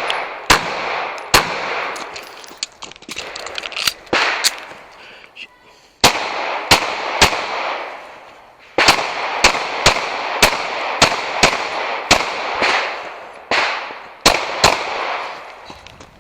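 Pistol shots fired in quick strings, about two to three a second, each shot echoing, with short pauses twice along the way.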